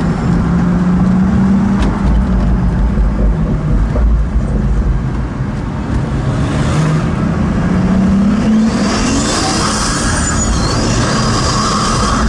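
Pagani Huayra's twin-turbo V12 heard from inside the cabin while driving. The engine drone holds steady, eases off, then rises in pitch as the car accelerates about six to eight seconds in. After that a rushing hiss joins on top.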